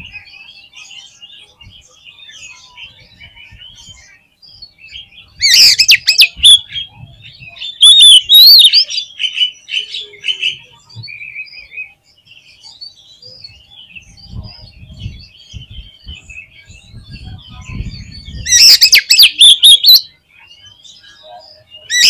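Oriental magpie-robin singing: quiet, continuous chattering notes, broken four times by loud, rapid runs of song.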